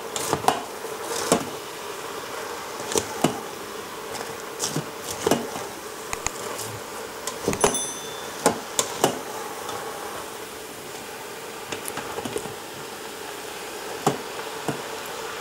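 Ground beef, cabbage and onion sizzling steadily in a stainless steel Instant Pot insert on sauté mode. A spatula scrapes and knocks against the pot in irregular strokes as the vegetables are stirred through.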